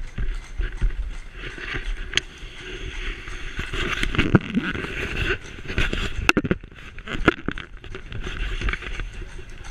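Horse-drawn carriage rolling over cobblestones: a continuous rumble of the wheels with irregular rattles and knocks from the carriage.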